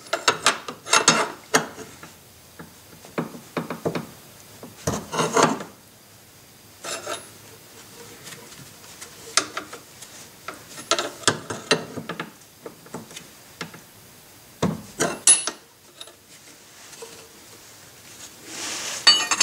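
Irregular metallic clinks, taps and scraping as a pry bar levers the steering column coupling up onto the input shaft of a Mercedes-Benz 560SL's power steering gearbox, in scattered bursts with gaps between them.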